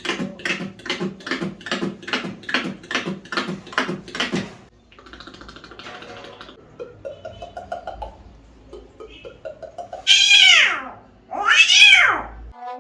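Cat-like meowing. A quick run of short, evenly spaced cries, about three a second, gives way to softer rising calls. Near the end come two loud, long meows, each rising and then falling in pitch.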